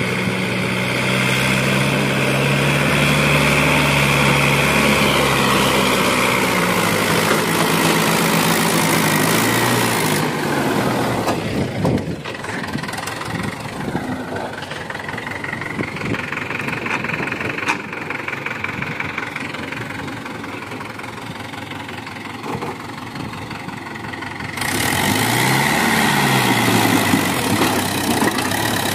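Mahindra 575 DI tractor's four-cylinder diesel engine running under load as it hauls a fully loaded trolley up a dirt slope, its pitch shifting with the throttle. Near the end the engine speed rises and falls briefly.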